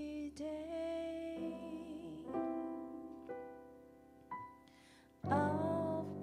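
Live ballad: a woman's voice holds a sung note over sustained digital piano chords, which change about once a second and fade almost away near the end of the phrase. About five seconds in, the music comes back in loudly, with the saxophone entering.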